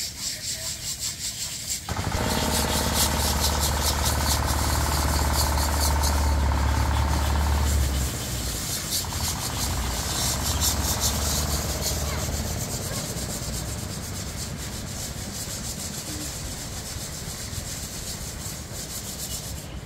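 Fast, repeated scratchy strokes of hands scrubbing the old paint off a concrete elephant statue, running throughout. An engine hum comes in about two seconds in, is loudest until about eight seconds, then fades away by about twelve seconds.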